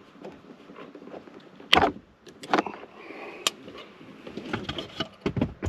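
Clicks, knocks and rustling from a car speaker and its cables being handled, with one loud knock a little under two seconds in and a few sharp clicks after it.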